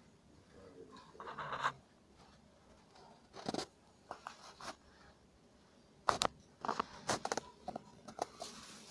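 Handling noise: a brief rustle about a second in, then a series of sharp clicks and taps, clustered near the end.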